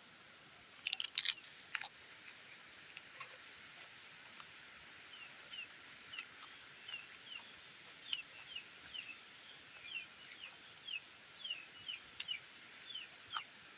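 Close-up eating sounds: a burst of sharp clicks and crunches of chewing about a second in. From about halfway, short falling chirps repeat roughly twice a second, most likely a small bird calling in the background.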